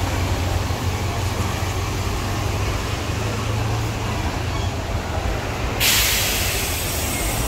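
Steady low rumble of a bus engine and traffic, with a sudden loud hiss of bus air brakes about six seconds in that lasts a second or two.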